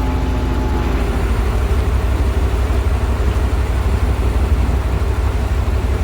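Diesel engine of a truck-mounted crane (manipulator truck) running steadily with a heavy low rumble. A higher steady hum over it stops about a second in.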